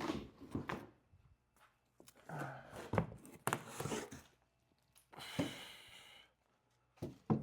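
Nailed wooden shipping-crate boards being pried and pulled apart: a run of knocks and scrapes, then a high squeak lasting about a second as the nailed boards give way, and another knock near the end.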